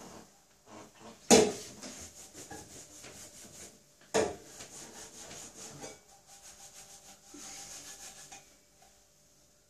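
A cloth rubbing over a metal cooking pot in quick strokes, broken by two sharp metal clanks, about a second in and about four seconds in.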